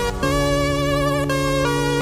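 Electronic background music: sustained synthesizer chords that change about a quarter second in and again near the end.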